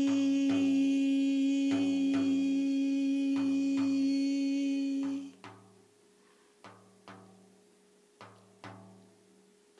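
A woman sings a long held 'shee' (the Qigong healing sound 'xi') into the side of a Remo Renaissance frame drum while tapping it with her hand in paired beats about every second and a half. The voice stops about five seconds in, and the soft drum taps go on alone.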